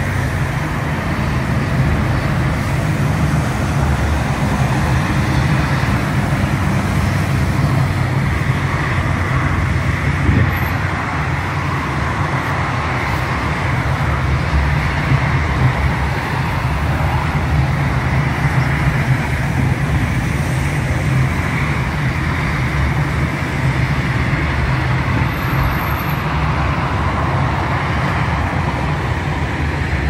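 Steady motor-vehicle noise: a continuous low engine hum under an even rushing road noise, with no breaks or sudden events.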